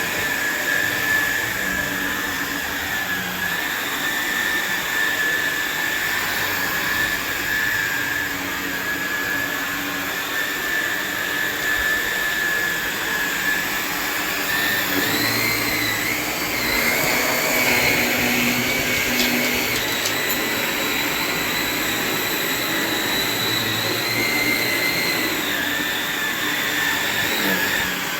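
Shark NV360 Navigator Lift-Away upright vacuum cleaner running: a steady motor whine over a rush of air. About halfway through, the whine rises in pitch for roughly ten seconds, then settles back down.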